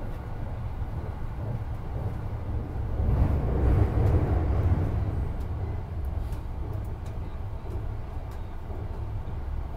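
Marine Liner rapid train running at speed, heard from inside the carriage: a steady low rumble that swells louder for about two seconds around three seconds in.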